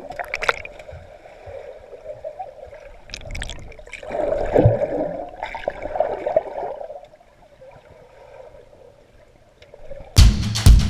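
Muffled underwater sloshing and gurgling of pool water heard through a GoPro's waterproof housing, loudest about four to five seconds in, with a few sharp knocks. Near the end, music with a drum beat cuts in.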